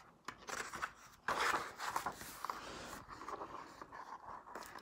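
A page of a large picture book being turned by hand: paper rubbing and sliding, loudest from about a second in, with a few light taps.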